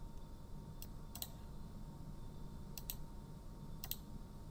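A few faint, sharp clicks, about four in all and irregularly spaced, over a low steady hum.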